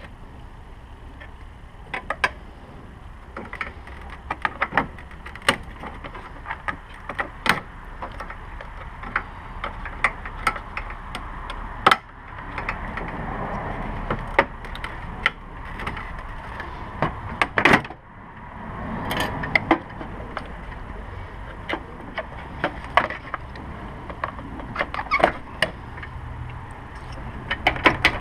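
Irregular sharp clicks and knocks from car parts and tools being handled, over a rushing background that swells twice.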